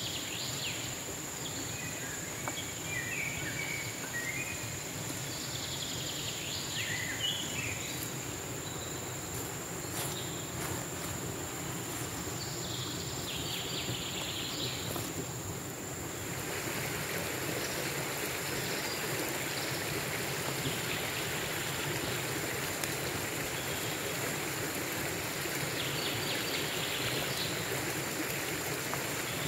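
Small forest stream running steadily, with short high chirps now and then and a thin steady high insect whine over it. The water sound grows a little louder about halfway through.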